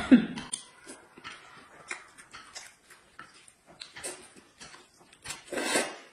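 Close-up eating sounds: a string of wet mouth clicks and lip smacks from chewing, with a louder noodle slurp near the end.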